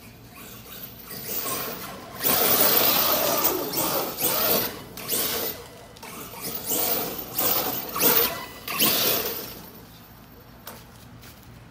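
Arrma Kraton 8S brushless electric RC monster truck driving hard on grass and dirt: several bursts of throttle with motor whine and tyres spraying dirt, loudest from about two seconds in and dying away near the end.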